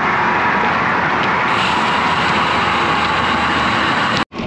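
Steady rushing noise of a road bike riding at about 17 mph: wind on the microphone and tyres rolling on grooved concrete. It cuts out suddenly for a moment near the end.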